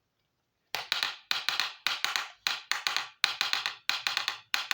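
Small hard plastic miniature kitchen-toy pieces clacking and tapping together, a quick run of sharp clicks in clusters of two or three starting about a second in.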